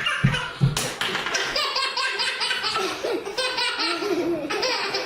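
A baby laughing in repeated bursts of giggles, with a couple of short low thuds in the first second.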